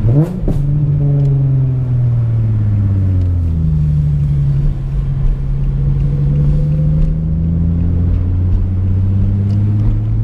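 Infiniti G37's 3.7 L V6 with an ISR aftermarket exhaust, heard from inside the cabin while driving. Just after the start the engine note jumps up sharply and drops back. It then falls away over a few seconds, holds steady at a cruise, and eases lower near the end.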